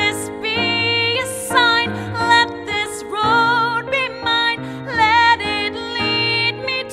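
A solo female singer sings held, sustained notes with vibrato over instrumental chord accompaniment.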